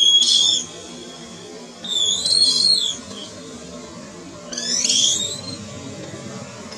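Baby long-tailed macaque crying: three shrill, high-pitched screams, each under a second long, at the start, about two seconds in and about five seconds in.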